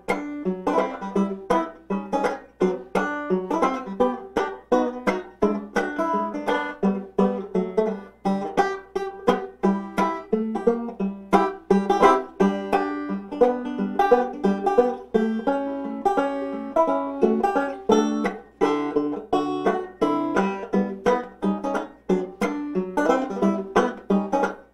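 Five-string banjo with a nylon head, fingerpicked with three fingerpicks in a quick, unbroken run of plucked notes.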